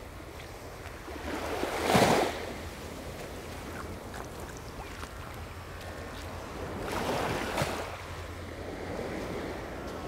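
Waves breaking and washing up the beach, two breaks: a louder one about two seconds in and another around seven seconds, over a steady low rumble.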